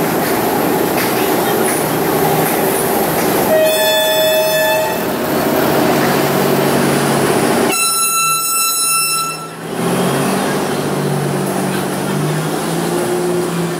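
Diesel train horn sounding twice: a lower blast about four seconds in, then a higher one a few seconds later, each lasting over a second. Underneath is the steady rumble of diesel locomotive engines running.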